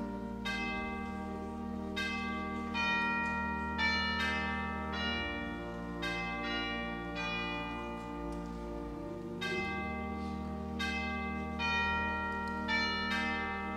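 Instrumental music of ringing bell tones, a new note struck every half second to a second and each ringing on into the next, over held low bass notes that change every few seconds.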